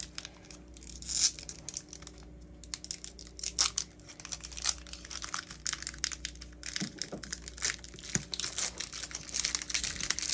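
Foil wrapper of a Pokémon trading card booster pack crinkling and tearing as it is handled and opened, in irregular clusters of sharp crackles.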